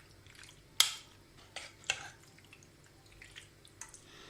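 A few short, sharp taps and clicks of a kitchen utensil on cookware, the loudest about a second in, with quieter ones near two seconds and near the end.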